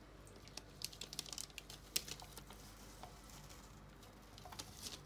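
Faint, scattered light clicks and taps from handling biscuit dough on a parchment-lined baking tray, in two loose clusters, the second near the end.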